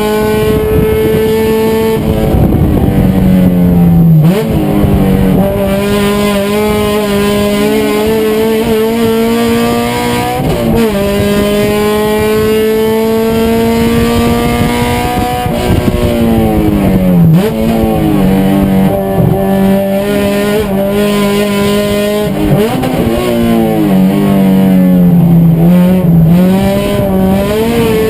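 Race car engine running hard, its pitch climbing steadily and then dropping sharply several times, as at gear changes and braking for corners.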